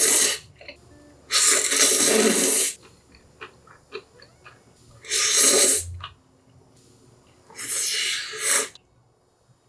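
Close-miked eating of Chapagetti black-bean noodles: loud slurps of about a second each, with one finishing as it begins and three more following. Soft wet chewing clicks fall between the slurps.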